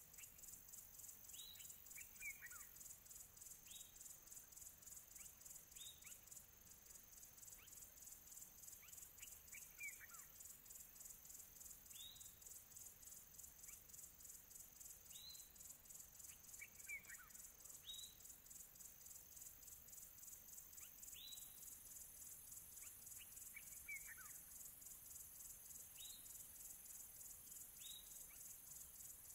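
Faint nature ambience: insects trill steadily at a high pitch in an even pulse, while a bird gives short chirps that slide downward every two to three seconds.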